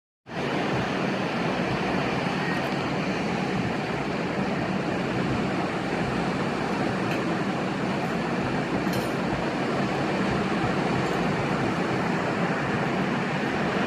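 Sea surf: a steady, unbroken wash of waves that begins abruptly a moment in.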